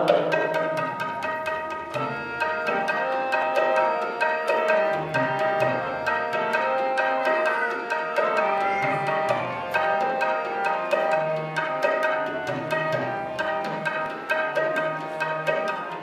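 Harmonium playing a melody of held reed notes with tabla accompanying in a steady rhythm of sharp strokes and deep bass-drum notes: the instrumental introduction to a Sikh kirtan shabad, before the singing starts.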